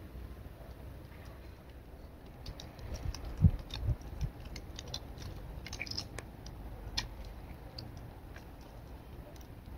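Cat's claws scratching and clicking on tree bark as it climbs the trunk: a scatter of sharp scrapes over several seconds. A few low thumps come about three and a half to four seconds in, the first the loudest.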